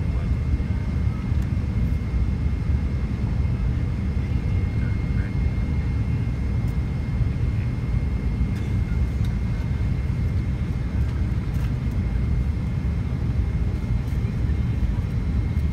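Steady cabin rumble inside a McDonnell Douglas MD-88 airliner descending on approach, the mix of airflow and the drone of its rear-mounted JT8D turbofan engines, with a thin steady high tone above it.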